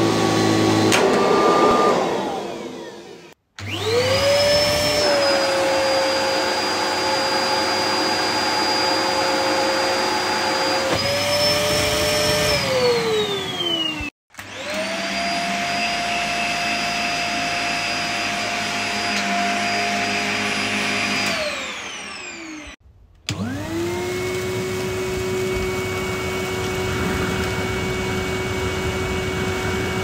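Vacuum cleaner motors switched on and off in turn. A running motor winds down about two seconds in. Then three more each start with a quick rising whine, run at a steady high whine for several seconds, and wind down with a falling whine, except the last, which is still running at the end. The one running through the middle is a Dyson DC50's motor.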